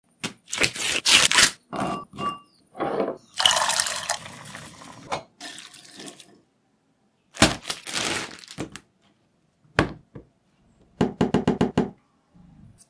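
A string of separate kitchen preparation sounds: sharp knocks and taps, pouring and splashing, and boiled sweet corn kernels sliding from a steel pot into a wire strainer about six seconds in. Near the end comes a quick, even run of about eight taps.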